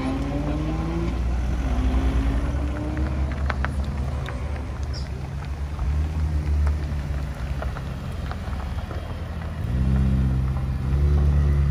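Car engines running as cars drive off one after another. In the first few seconds an engine rises in pitch as it accelerates, a lower steady rumble follows, and a louder deep engine note comes in near the end.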